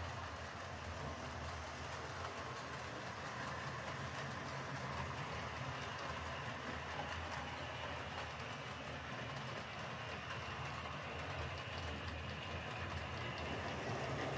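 Hornby Class 3F 'Jinty' OO gauge model tank locomotive, fitted with a replacement motor, running steadily around a layout hauling coaches: a continuous motor hum and wheel-on-rail running noise, growing a little louder near the end.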